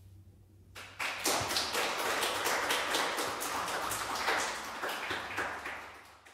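Audience applause breaking out about a second in, after the last note of a live jazz quartet dies away, and fading out near the end.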